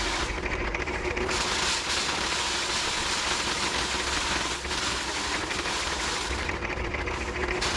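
Foot-pedal paddy thresher running: its spinning wire-toothed drum gives a steady, fast rattle as it threshes rice, with a brief dip about halfway through.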